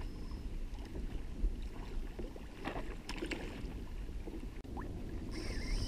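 Light clicks and knocks of fishing tackle being handled aboard a plastic fishing kayak, over a steady low rumble of wind and water.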